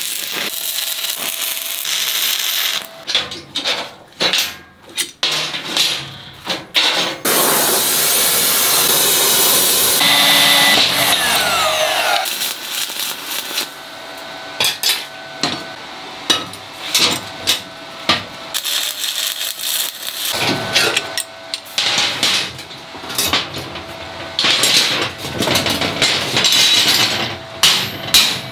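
Stick-welding arc crackling and hissing on steel plate in several bursts, the longest about three seconds, with a short falling whine about ten seconds in. Later a chipping hammer knocks slag off the fresh welds in a run of irregular sharp taps.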